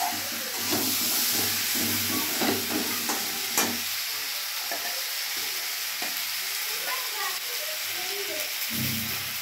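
Potatoes in spiced masala sizzling in a metal kadai while a flat metal spatula stirs and scrapes them against the pan, with one sharp clink about three and a half seconds in.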